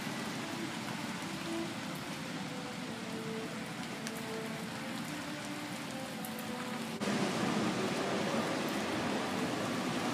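Steady rain falling on a wet concrete floor and wire-mesh kennel enclosures. About seven seconds in, it abruptly gets louder.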